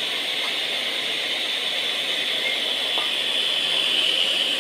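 Makita LS1040 10-inch miter saw running at speed, a steady hissing whirr from the motor and spinning blade, a little louder near the end as the blade is brought down onto the aluminium.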